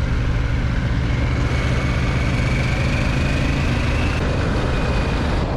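Harley-Davidson Pan America's V-twin engine running steadily while riding at road speed, with wind and road noise.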